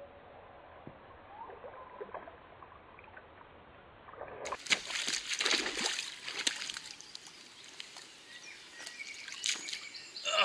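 An angler in waders slips and falls into a shallow, rocky river, landing on his fly rod. After a few faint seconds there is a sudden loud splash and clatter, followed by water sloshing and further splashes as he scrambles back up.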